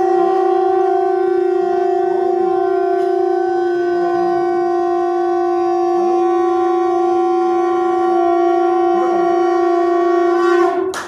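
Conch shell (shankh) blown in one long, steady, unbroken note, cutting off near the end.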